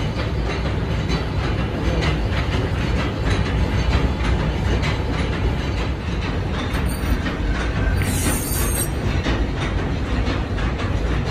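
Metal lathe running while it turns a steel truck axle shaft: a steady, loud mechanical rumble with many irregular clicks and rattles from the machine and the cutting.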